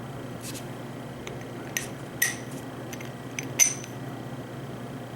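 Small stainless steel doorbell parts (plate, push button and lock nut) clinking and clicking against each other as they are handled, a handful of light metallic taps with a brief ring, the loudest about three and a half seconds in, over a low steady hum.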